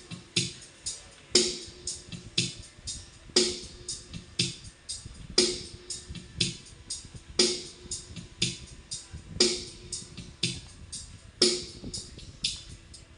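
Music with a steady drum beat played through a sound system for a sound check: a strong hit about every two seconds with lighter hits between.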